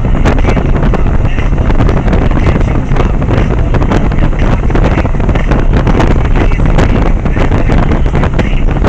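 Loud, steady wind buffeting on the microphone of a camera riding on a moving motorcycle, blotting out the engine.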